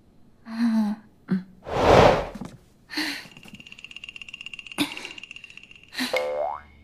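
A short vocal hum, then a loud forceful breath out, followed by a steady high shimmering tone with a fast flutter, a sharp click, and a tone gliding upward near the end: drama sound effects for channelling inner spiritual energy.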